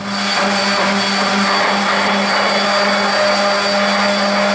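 DeWalt 5-inch random orbit sander running steadily as it sands a wooden dowel handle, a constant motor hum under a dense sanding hiss.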